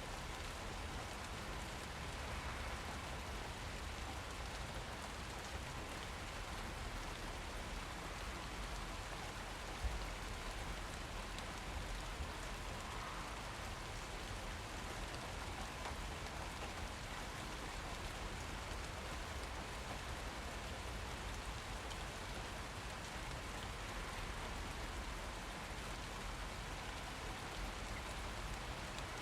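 Steady rain falling and pattering on surfaces, with a low rumble underneath and one brief sharp tick about ten seconds in.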